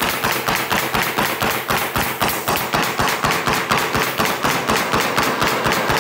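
Pneumatic crown stapler firing in quick succession, about five shots a second, each a sharp clack as it drives 1¼-inch crown staples through quarter-inch plywood underlayment along a seam into the subfloor.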